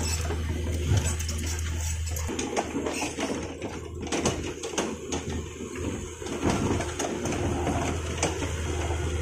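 Mini excavator's diesel engine running, with scattered knocks and clatter from the work site. The low hum fades for a few seconds in the middle and then comes back.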